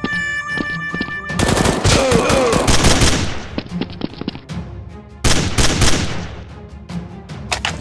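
Two bursts of rapid automatic gunfire, the first about a second and a half long starting a second and a half in, the second about a second long near two-thirds of the way through, over background music.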